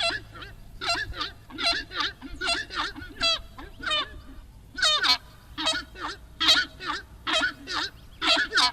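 Horned screamer (aruco) calling: a fast series of loud honking calls, about two a second, each with a high falling note over a low one.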